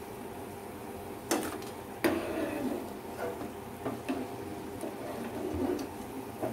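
Onion ring pakoras sizzling in hot oil in a non-stick frying pan, with a steel slotted spoon knocking and scraping against the pan as the rings are scooped out. The two loudest knocks come about one and two seconds in, followed by a few lighter clinks.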